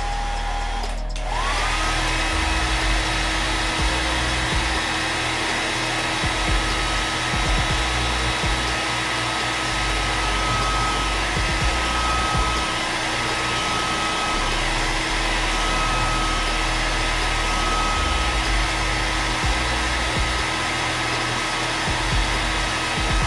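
A small electric motor in the airbrush setup runs with a steady whir and hiss. About a second in it cuts out briefly, then spins back up, its whine rising in pitch before it holds steady.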